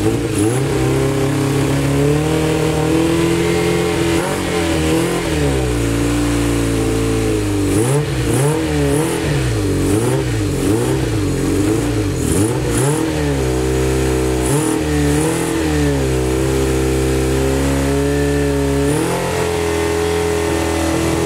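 Four-cylinder motorcycle engine with a bank of four carburetors running, its throttle blipped over and over through the middle so the revs rise and fall, with steadier running before and after.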